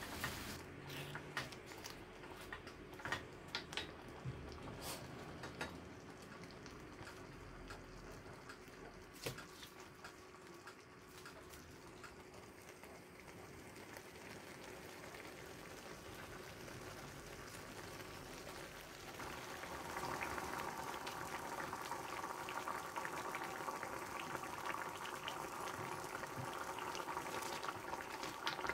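Thick curry sauce simmering in a frying pan, bubbling and popping, with scattered light knocks of a spatula against the pan in the first ten seconds. About two-thirds of the way through, the bubbling grows louder and busier as it comes up to a fuller boil.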